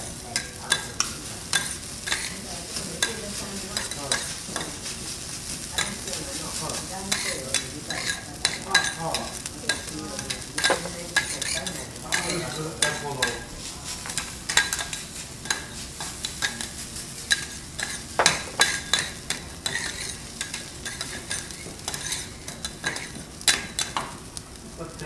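Fried rice with diced beef sizzling on a steel teppanyaki griddle, over a steady hiss. Sharp metal clicks and scrapes, several a second, as spatulas toss and chop the rice against the hot plate.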